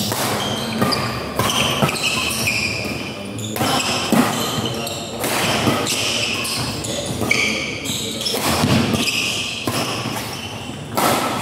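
Badminton doubles rally: a string of sharp racket strikes on the shuttlecock, with shoes squeaking on the court and spectators' voices in the background.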